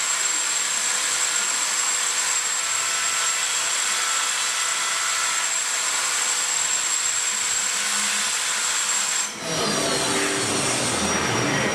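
Aluminium being machined with a 45° indexable chamfer mill spinning at 10,000 rpm in a CNC machining centre: a steady cutting hiss with a thin high whine. About nine seconds in the sound drops briefly and changes as the tool lifts clear of the work.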